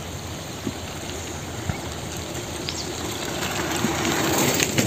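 A bicycle rolling up and past on an asphalt road: a steady hiss of tyres on the road that grows louder toward the end as it comes close.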